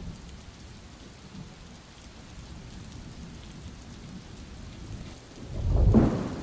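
Steady hiss of rain, then a low rumble of thunder swelling up about five and a half seconds in.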